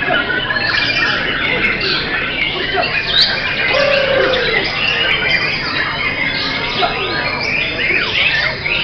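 Several caged white-rumped shamas singing at once: a dense, unbroken chorus of overlapping whistles, quick slurred phrases and harsh chattering notes.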